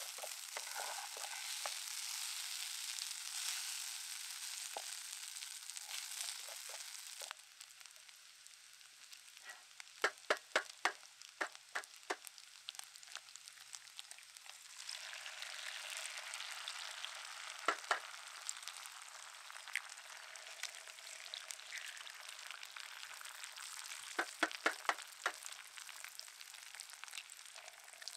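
Shredded hash browns sizzling in bacon fat in a pan. The sizzle drops away suddenly about seven seconds in and comes back about halfway through. Several quick runs of sharp taps or clicks cut through it, the loudest sounds present.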